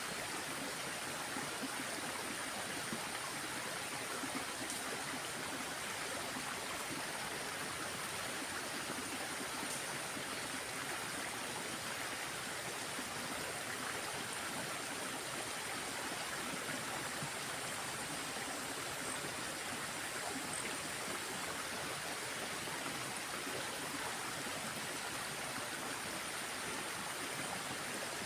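Water in a small stream flowing with a steady, even rush.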